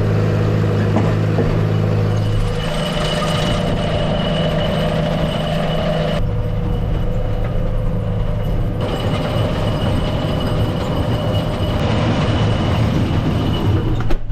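Tractor engine running steadily with the PTO driving a feeder wagon, with a high mechanical whine from the feeder that comes and goes.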